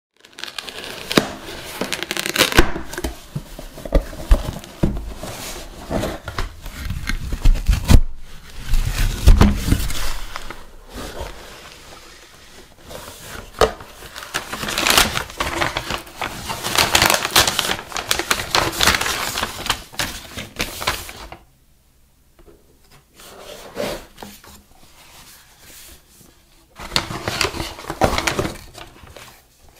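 Cardboard shipping box being opened and its paper packing sheets handled: irregular rustling, crinkling and scraping of cardboard and paper, with sharp clicks and a few dull knocks. The handling goes quieter about two-thirds of the way through, then picks up briefly near the end.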